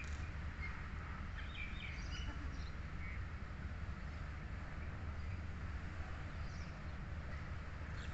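Outdoor ambience: faint, scattered bird chirps over a steady low rumble.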